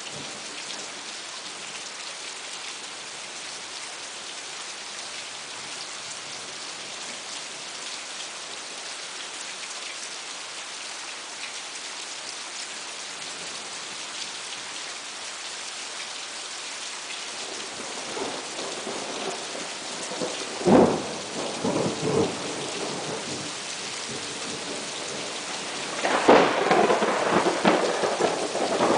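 Steady rain falling in a thunderstorm. Thunder builds to a sharp clap about two-thirds of the way in, followed by rumbles, then a longer, louder roll of thunder near the end.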